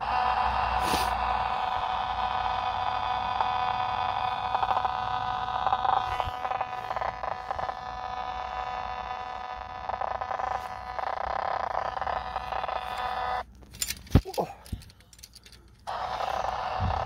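Analog TV set's speaker playing the audio of a weak, distant broadcast: a steady buzz with hiss. It cuts out about thirteen seconds in, a few sharp clicks follow, and it comes back near the end.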